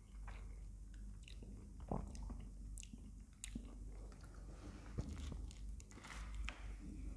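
Close-miked eating of ice cream with a metal spoon: wet chewing and mouth sounds, with sharp clicks of the spoon against the plastic tub, the loudest about two and five seconds in.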